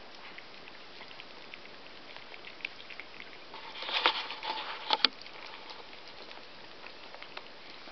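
Chihuahua puppies' paws pattering and scratching on newspaper, a scatter of light ticks and rustles. A louder burst of rustling and sharp clicks comes around the middle.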